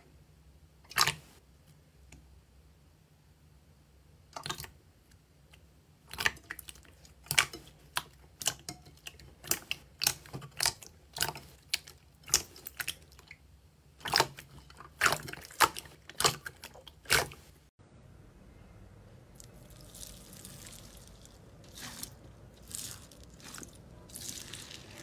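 Hand pressing and poking into glossy slime, squeezing out a long series of sharp, separate pops and clicks. About eighteen seconds in the sound cuts to a softer, steady crackling as hands press a red slime with a crunchy, icy-looking top layer.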